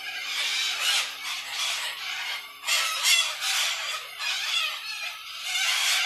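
A flock of corellas screeching, harsh overlapping calls that swell about halfway through and again near the end.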